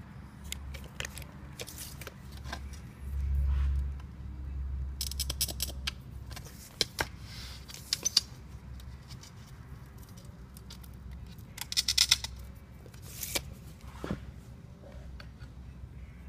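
Glass cutter scoring 1/8-inch window glass: two crackly scratching strokes of about a second each, with sharp clicks and taps of glass and tool in between, over a low hum.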